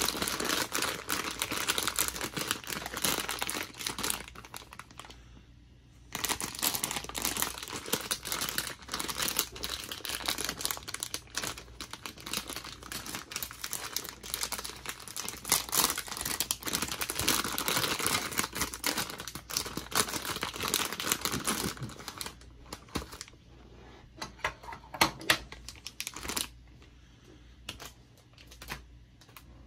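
Clear plastic bag crinkling and rustling as it is handled and opened, with a short pause about five seconds in. In the last several seconds the rustling stops and there are scattered clicks and light knocks of small plastic mount parts set down on a wooden desk.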